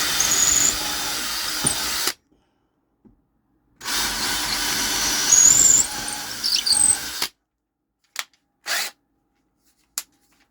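Power drill boring a guide hole, running for about two seconds, stopping, then running again for about three and a half seconds. A few short knocks follow near the end.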